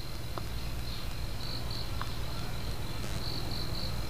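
Crickets chirping in short repeated pulses over a steady low electrical hum, with a couple of faint clicks.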